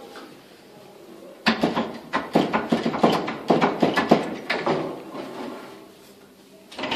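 A person crawling under a wooden door through the gap at its foot: a run of irregular scrapes, shuffles and knocks of body and hands against the floor and door, starting about a second and a half in and dying away near the end.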